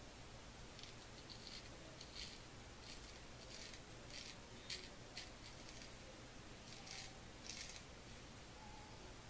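Billy T. Titan straight razor scraping through lathered beard stubble on the neck: a series of short, scratchy strokes, about one every half second to second, with a pause of a second and a half partway through.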